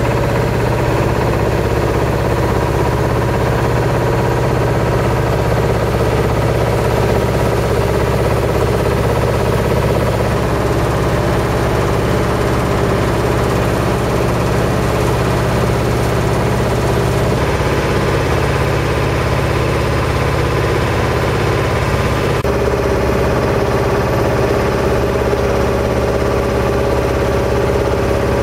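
A boat's engine running steadily at low speed, a continuous low hum. Its tone shifts slightly about two-thirds of the way through.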